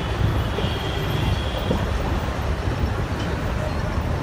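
Steady rumble of road traffic crossing a bridge.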